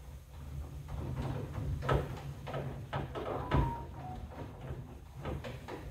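Scattered metal knocks and clicks as a suicide door is fitted onto the hinges of a Peterbilt 379 sleeper bunk, with a brief squeak about three and a half seconds in, over a low steady hum.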